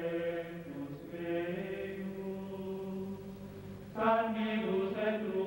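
Background music of low, sustained chanted voices holding long notes, with a louder new phrase entering about four seconds in.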